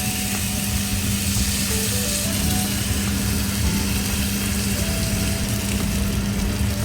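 Food sizzling as it fries in a hot pan, a steady hiss over a constant low hum.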